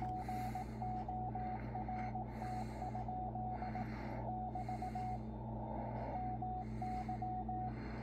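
Morse code (CW) from a W1AW code-practice transmission on 80 meters, received on a Yaesu FTdx10 transceiver: a single steady pitched tone keyed in quick dots and dashes. A patch of static about four seconds in briefly covers the tone, over a background hiss that swells about once a second.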